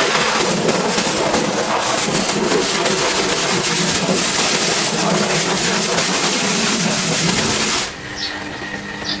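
Large pressure washer spraying with a loud steady hiss that cuts off suddenly near the end, leaving a quieter steady hum.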